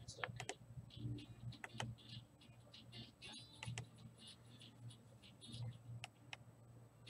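Faint, irregular clicks of a computer keyboard and mouse as text is copied and pasted, over a low steady hum.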